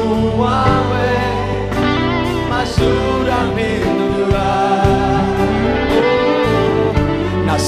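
A live gospel worship band playing: electric guitar, drum kit, bass and keyboard, with singers' voices over the top.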